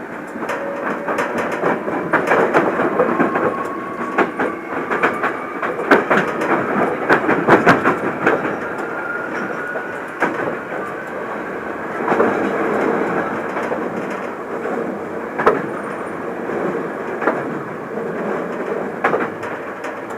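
Hankyu Kyoto Line electric train heard from inside the car, running at speed: a steady rumble with wheels clacking repeatedly over rail joints. A motor whine rises slowly in pitch through the first half as the train keeps accelerating.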